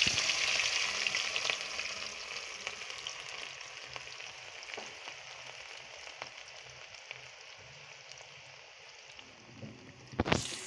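Sliced onions frying in very hot oil in a kadai: a loud sizzle right after they go in, fading steadily, with scattered pops. About ten seconds in, a slotted spatula starts stirring them and the sizzle picks up again.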